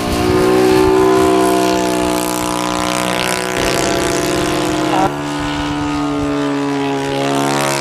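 YS-120NC four-stroke glow engine of an RC model warbird running in flight, its propeller buzzing. The engine note steps down in pitch twice, about three and a half and five seconds in.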